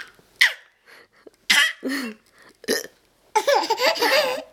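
A woman's hiccups, several short, sharp gulps about a second apart, followed about three seconds in by a burst of laughter lasting about a second.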